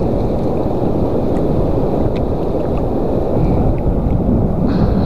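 Wind buffeting the microphone over choppy sea water, a steady heavy rush, with a few faint ticks in the middle.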